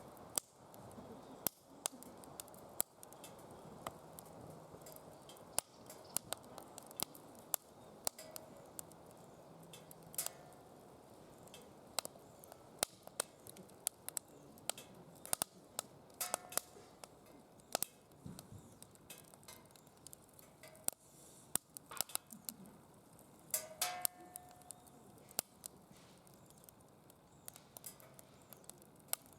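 Wood fire burning in a DOD Mecha Moe Fire fire pit: irregular sharp crackles and pops over a soft hiss, with a brief whistle twice.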